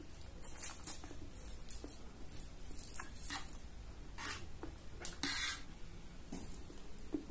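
Close-miked eating of instant fried noodles: several short wet slurps as strands of noodles are sucked in, with chewing between them. The longest and loudest slurp comes about five seconds in.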